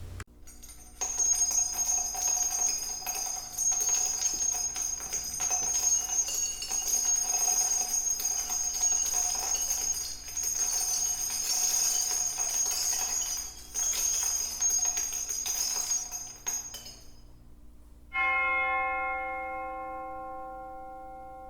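Music demo playing through Energy C100B bookshelf speakers: a dense passage with jingling bells and shimmering high percussion, which stops abruptly. Near the end a single bell-like chime is struck and rings out, slowly fading.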